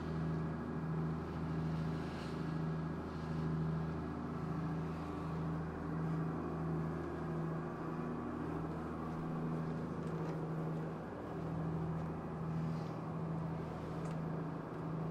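Diesel engine of a 54-foot Cheoy Lee trawler running steadily underway, a low drone with a slow, regular throb.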